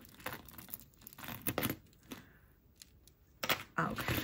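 Hands handling jewelry and its packaging: short bursts of crinkling and rustling with light clicks, a quieter pause in the middle, and more handling near the end.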